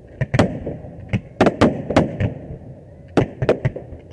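Aerial firework shells bursting: about a dozen sharp bangs at uneven intervals, each trailing off in a short rumble, with a lull of about a second before a final cluster near the end.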